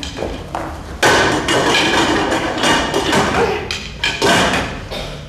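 A dense run of loud knocks and thumps, starting suddenly about a second in and fading after about three and a half seconds.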